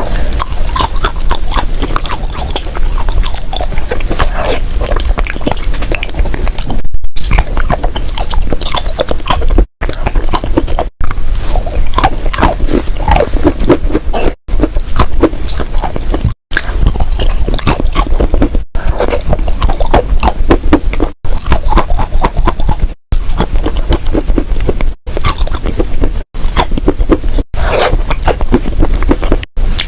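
Crunchy clay being bitten and chewed, a dense run of crackling crunches. The crunching is cut by brief silent gaps every two seconds or so.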